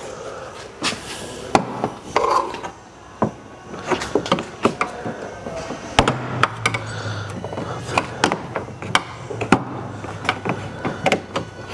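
Plastic trim clips being pried out of a tailgate panel with a panel popper tool: irregular sharp clicks, snaps and knocks of plastic, with handling rubs in between.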